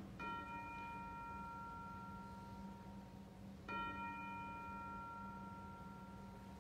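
A bell struck twice, about three and a half seconds apart. Each stroke rings on in several clear tones and fades over about three seconds, over a low steady hum.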